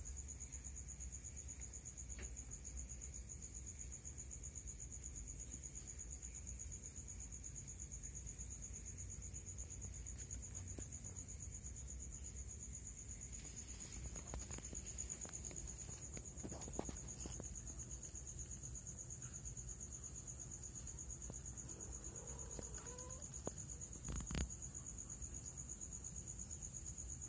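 Crickets chirping in a steady high-pitched trill, with a low background hum and a few faint knocks.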